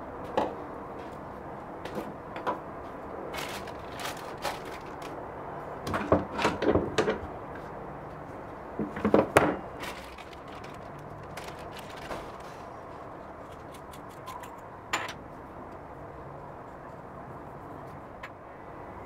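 Small plastic zip bags crinkling as they are handled and opened, with small metal fittings clicking and tapping on a metal workbench; the louder crinkling comes in two spells about six and nine seconds in. A steady low background noise runs underneath.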